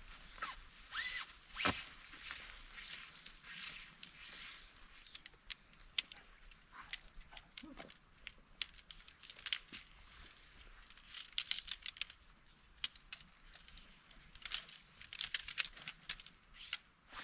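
Irregular crunching steps in snow, short crisp crackles that come in clusters, thickest in the second half.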